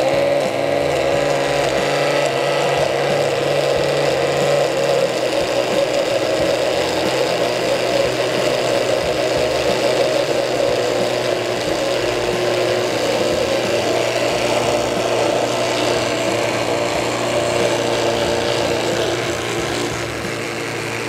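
Countertop blender motor running continuously, grinding a thick roasted-pepper and peanut sauce that is slow to blend. Its pitch wavers up and down as the thick mix loads the blades.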